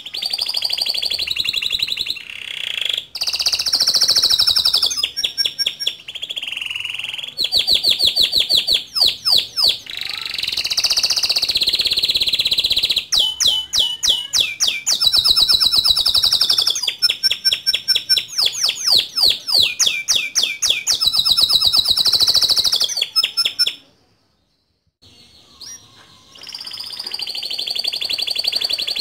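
Male domestic canary singing hard, in long rolling trills and fast runs of repeated high notes, with a short break about four fifths of the way through.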